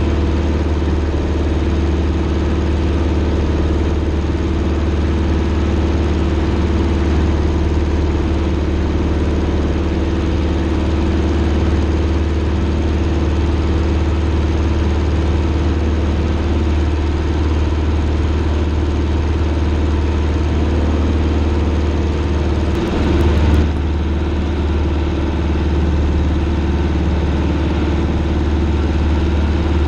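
Single-engine Cessna's piston engine and propeller running steadily in flight, heard from inside the cabin, with a brief bump about three-quarters of the way through.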